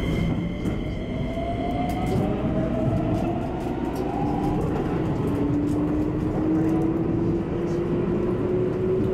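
Keikyu 1000 series (1800 subseries) electric train heard from inside the cab while moving: a steady wheel-on-rail rumble with the traction motor whine rising slowly in pitch as the train picks up speed.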